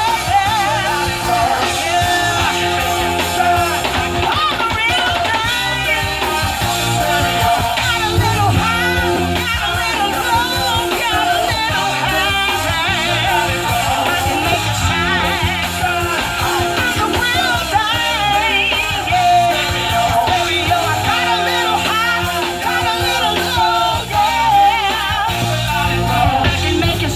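Live band playing a song: a singer's lead vocal over bass and guitar, with a steady beat throughout.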